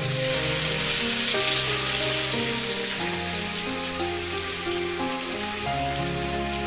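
Sliced onions sizzling steadily as they fry in hot oil in a wok, over background music with slow held notes.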